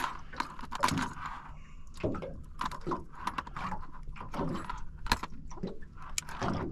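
Steel gang hooks clinking and tapping as they are handled and laid on a plastic esky lid: a run of irregular small metallic clicks, over a low steady hum.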